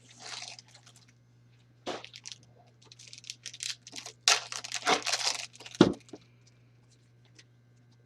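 A trading-card pack wrapper being torn open and crinkled by hand, in irregular rustling bursts over about six seconds, with a couple of light knocks as the pack or cards are handled.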